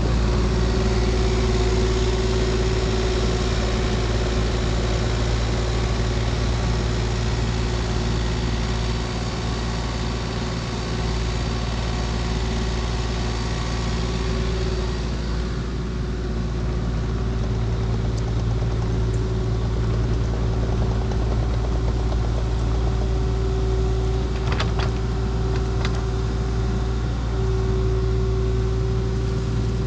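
Engine of a compact earthmoving machine running steadily with a constant hum, as it works spreading topsoil, with a few light knocks in the last few seconds.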